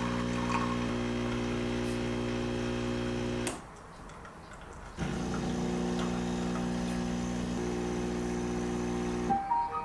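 KANU Breeze capsule coffee machine's pump humming steadily while brewing. It cuts off for about a second and a half, then runs again until near the end, when a few short clicks and tones follow.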